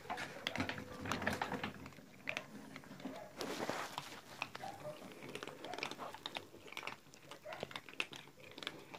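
A group of cats crunching dry kibble from a shared bowl: a dense, irregular patter of small crunches and clicks, with a brief burst of noise about three and a half seconds in.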